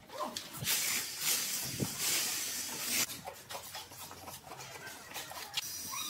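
Steel trowel scraping cement mortar across a concrete wall: a steady rasp for about two seconds that stops abruptly, followed by faint scattered clicks.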